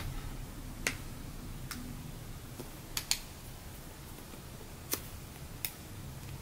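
Scattered sharp little clicks, about six spread over several seconds, as fingers squeeze and knead a jumbo apple-shaped slow-rising foam squishy, with a faint low hum underneath.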